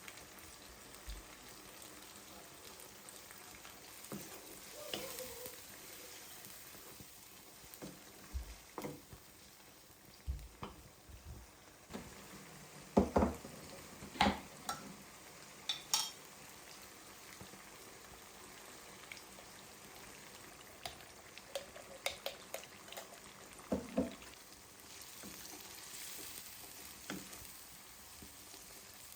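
Food frying in a pan with a steady sizzle, while a utensil stirs and knocks against the pan in short scattered clicks, most of them around the middle.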